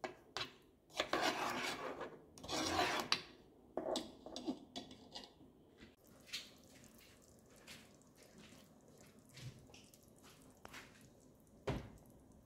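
A metal spoon scraping and clinking against a granite-coated cooking pot, with two longer scrapes of about a second in the first few seconds, then a few faint taps and one sharp clink near the end.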